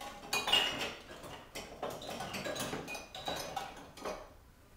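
Dishes and cutlery clinking and clattering as a dishwasher is unloaded: a busy run of knocks, some with a brief ringing tone, tailing off near the end.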